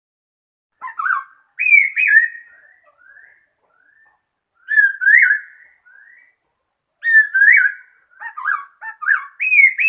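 A songbird singing: three phrases of clear, varied whistled notes laced with rapid high twitters, separated by short pauses.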